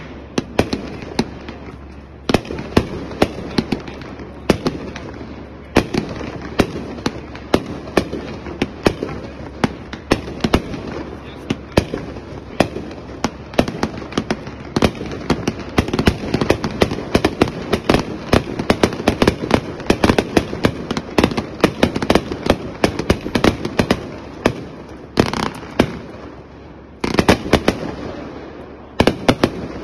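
A 1.4G three-cake fireworks combo firing: a rapid, unbroken string of sharp bangs with crackle between them. The shots let up briefly twice near the end.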